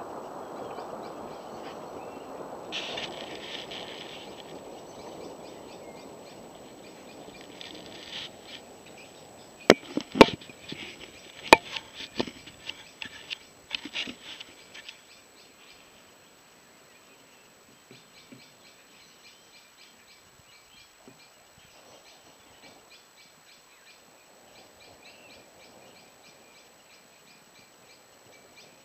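Rolling thunder fading away over the first several seconds. A few loud, sharp knocks come about ten to twelve seconds in. Then only faint, rapid, high ticking is left.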